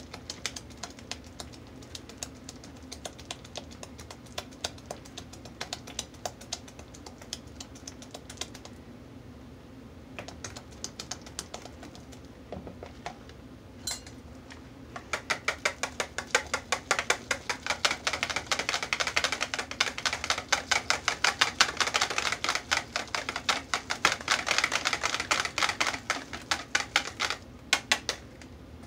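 Wire whisk clicking and rattling against the sides of a plastic mixing bowl as thick, cooked hot-process soap paste is whisked. Intermittent clicks at first, a pause with one sharp knock about halfway through, then a faster, louder run of whisking that stops shortly before the end.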